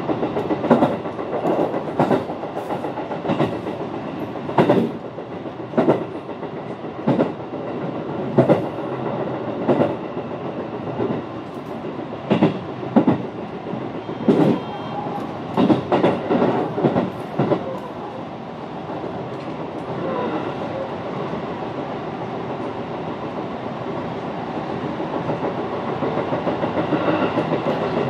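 Running noise heard from inside a JR Nara Line rapid train: a steady rumble with irregular clatter of the wheels over rail joints for the first two-thirds, then smoother, slightly swelling running near the end.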